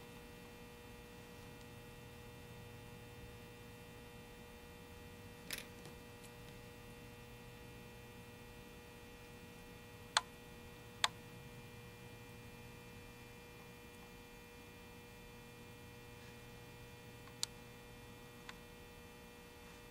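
Steady electrical mains hum, faint, with five short sharp clicks scattered through it.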